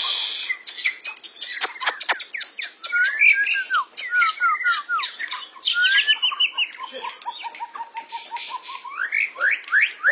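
Caged white-rumped shama (murai batu) singing a fast, varied song of whistles, rising and falling sweeps and chattering notes, with a run of quick short notes at one pitch midway and a string of rapid rising whistles near the end. A brief hiss right at the start.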